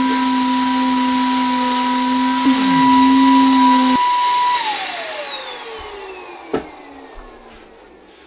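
A power sander connected to a vacuum by a hose running with a steady whine, then switched off. A short falling tone comes about two and a half seconds in and the noise cuts off at about four seconds. The motor whine then glides slowly down as it spins down, and a single sharp knock comes near the end.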